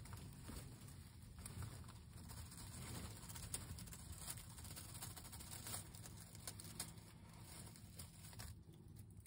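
Faint crackling and rustling of dry pine straw as a broody Royal Palm turkey hen reaches out and works chicken eggs back into her nest with her beak, with a few sharper ticks scattered through.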